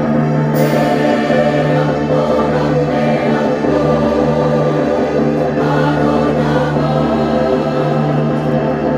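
A choir singing long held chords that shift every second or so.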